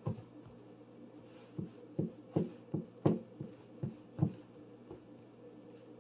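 Floured hands pressing and patting pie-crust dough into a glass pie dish: soft, irregular pats and thumps, about two a second, over a faint steady hum.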